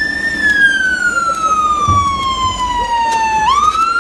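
Fire engine siren on a slow wail: the pitch falls steadily for about three seconds, then sweeps quickly back up near the end.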